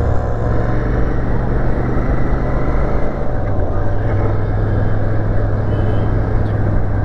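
Royal Enfield Shotgun 650's 648 cc parallel-twin engine running steadily under way. Its note shifts slightly about three seconds in.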